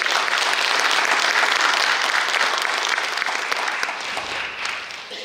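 Audience applause, a steady patter of many hands clapping that thins and dies away over the last second or two.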